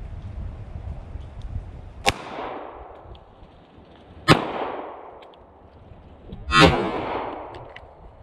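Three shots from a compact semi-automatic pistol, a little over two seconds apart, each followed by an echo that dies away over about a second; the third is the loudest.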